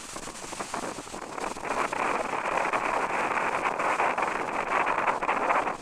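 Strong wind buffeting the microphone with sea surf beneath, a rough, crackling rush that grows louder about a second and a half in.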